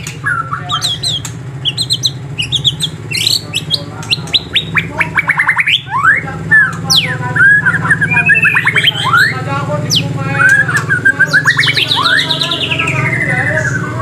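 Songbirds singing: quick chirps, fast trills and sweeping whistles from several birds overlapping, over a steady low hum. A long descending trill comes near the end.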